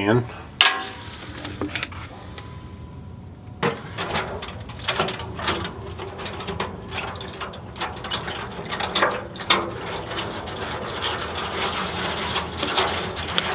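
Apple juice pouring from a bottle and splashing into a foil drip pan, starting about three and a half seconds in and running on with irregular splashes. There is a sharp click near the start.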